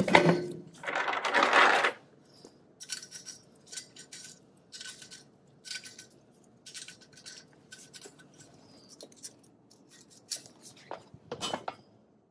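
Wheel and tire being hung on a truck's front hub: a loud rubbing scuff at the start, then a run of light metallic clinks, about one a second, as the wheel and lug nuts go onto the studs.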